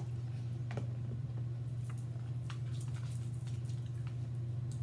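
Soft scattered clicks and taps of a spoon scooping homemade tartar sauce out of a plastic container, with small wet eating noises, over a steady low hum.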